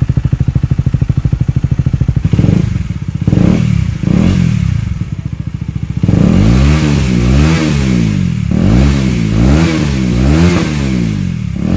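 KTM Duke 250's single-cylinder engine breathing through an Akrapovic slip-on exhaust with the dB killer taken out: an even, thumping idle, then three short throttle blips, then a run of quick revs rising and falling over and over.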